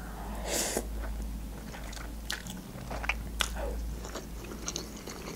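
Close-miked mouth sounds of eating instant noodles: a slurp of noodles about half a second in, then chewing with small wet clicks.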